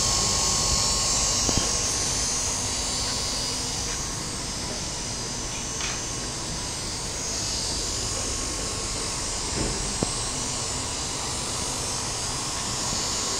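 Electric motor driving a rotary vane pump on a test rig, running steadily with a high hiss and a faint whine. A couple of brief clicks sound over it, one early and one near the end.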